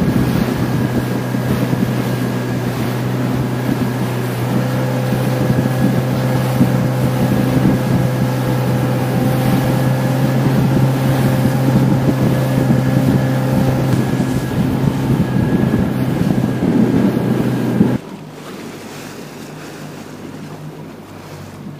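Outboard motor of a rigid inflatable boat running at speed: a steady drone mixed with rushing water and wind noise on the microphone. About four seconds before the end it drops suddenly to a much quieter wash.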